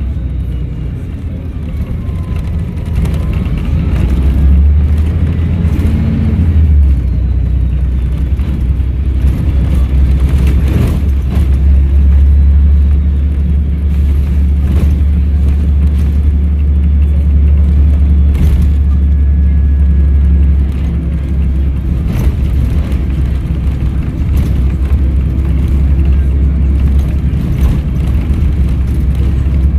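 Volvo B7RLE bus's diesel engine running under way, a heavy low rumble that swells and eases, with a faint turbo whistle gliding up and down in pitch above it. The engine note drops back about twenty seconds in.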